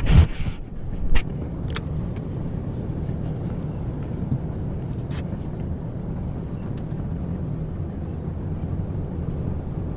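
Boat engine idling with a steady low hum, and a few sharp knocks and clicks in the first two seconds.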